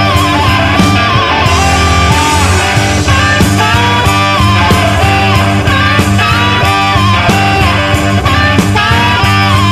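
Rock music with electric guitar, a steady bass line and drums, the guitar playing bending melodic lines.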